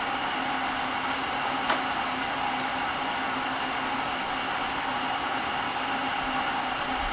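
Steady whirring of an electric fan with a constant hum under it. A faint click comes about two seconds in.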